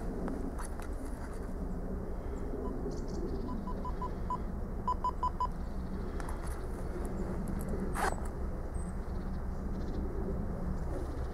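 Diesel locomotive engine running as a low, steady drone while the train approaches at a distance. A run of short high beeps comes a few seconds in, and a single sharp click sounds about two-thirds of the way through.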